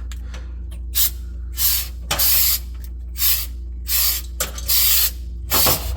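Aerosol spray can putting a first coat of rust-proofing finish onto a sanded, rusty refrigerator pan, in about seven short hissing bursts.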